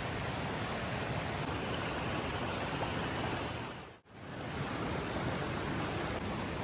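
Steady rushing noise that fades out briefly about four seconds in and fades straight back up.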